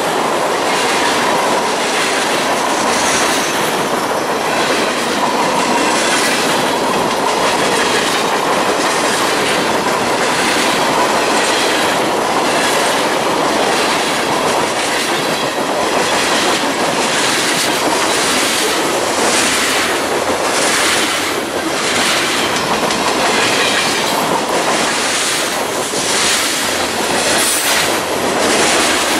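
Freight train cars rolling past at close range, the wheels clicking over the rail joints in a steady rhythm, with a faint wheel squeal at times.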